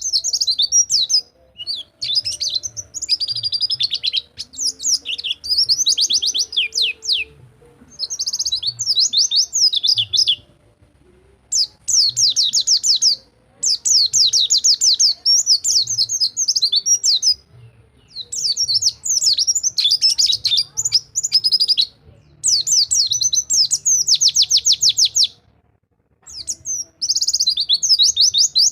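A white-eye (pleci) singing its long rolling 'rol tembak' song: fast high trills and chattering phrases of one to three seconds, separated by short pauses.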